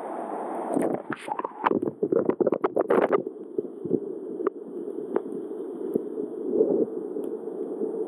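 Waterfall water falling close by and onto the camera, a steady dull rush. A flurry of splashes and knocks against the camera comes about one to three seconds in, then the rush carries on with a few single ticks.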